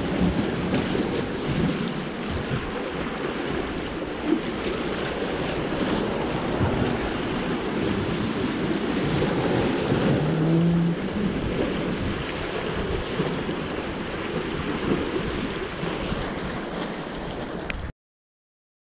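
Sea waves washing against shoreline rocks, with wind buffeting the microphone. The sound cuts off suddenly near the end.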